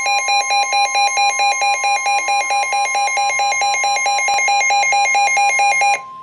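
Emergency weather alert tones: a harsh electronic alarm beeps rapidly, about four to five times a second, alternating between two pitches, over a steady tone of about 1 kHz, the NOAA Weather Radio warning alarm tone. Near the end the beeping stops and the steady tone carries on alone.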